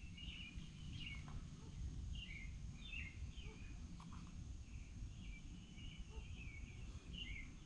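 Faint bird chirps, short high calls repeating every half second to a second, over a steady low background rumble. A couple of faint light clicks.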